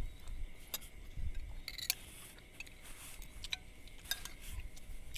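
Spoons clinking against plates and a metal pot as people eat: about half a dozen light, scattered clinks.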